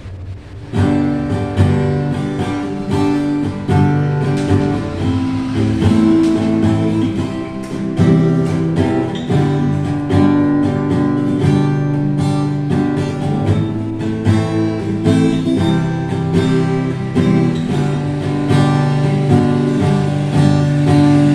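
Acoustic guitar (violão) being strummed and picked, with full chords ringing, starting about a second in.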